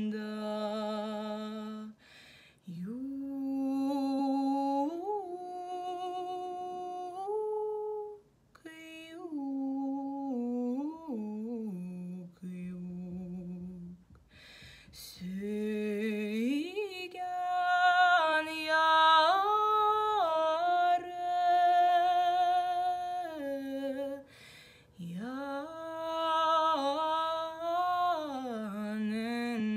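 A woman's solo voice singing a Tatar lullaby unaccompanied, in long held notes that slide slowly from pitch to pitch. Short breaths break the phrases, and near the middle she hums one low note with her lips closed.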